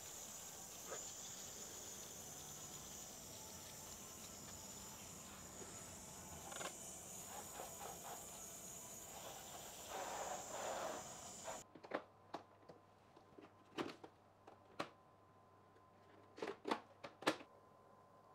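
Water spraying from a garden hose's spray nozzle onto potted seedlings, a steady hiss. About twelve seconds in it gives way to a quiet room with a series of sharp clicks and taps from hard plastic seed-storage boxes being handled.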